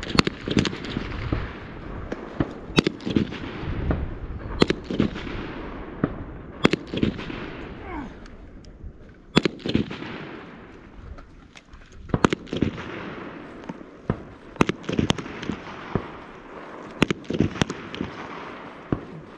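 Rifle and pistol shots in an irregular string, about one or two a second, some fired in quick pairs, each with a short echo; the shots thin out for a few seconds in the middle.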